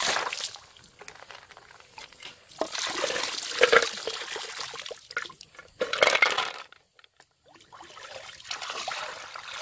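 Water being poured from a bowl and splashed by hand over a bowl of snails as they are rinsed, in a few separate pours with a short lull about two-thirds of the way through.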